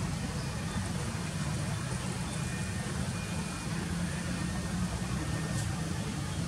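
Steady low rumble of an engine running, with a faint click about five and a half seconds in.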